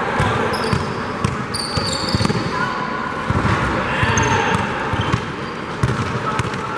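Basketball game play on a gym court: the ball bouncing as it is dribbled, with short high sneaker squeaks several times.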